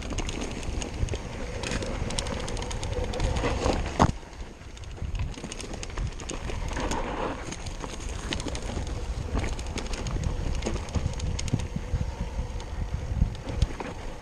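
Yeti SB6 mountain bike descending a dirt trail: wind rumble on the chest-mounted microphone and tyres rolling over dirt and rocks, with frequent clicks and rattles from the bike and a sharp knock about four seconds in.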